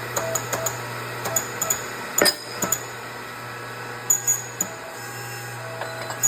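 A machine hums steadily while metal parts and tools clink and tick during the stripping of a bearing off a supercharger shaft with a bearing splitter, with a sharp metallic knock about two seconds in and a cluster of clinks about four seconds in.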